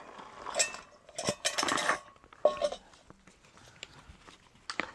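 Metal camping pot clinking and clattering, with its folding handles, as it is handled and set down on a wooden table after pouring, with a short ring from the metal about halfway through.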